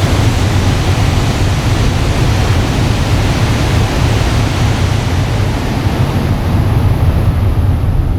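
Steady loud rushing noise of a Shinkansen train passing close by at speed. The noise falls off sharply just after it, as the train clears.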